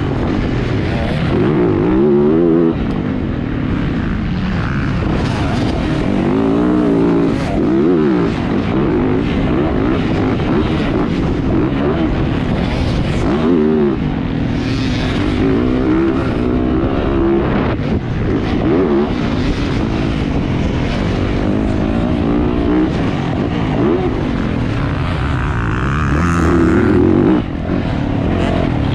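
Dirt bike engine being ridden hard around a motocross track, revving up and falling off again and again as the throttle is worked.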